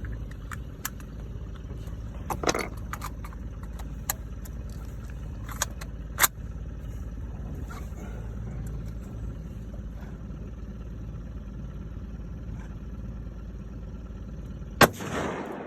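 A single loud gunshot near the end, a hunting rifle fired at a moose, with a short echoing tail. Before it, a steady low rumble with scattered clicks and knocks.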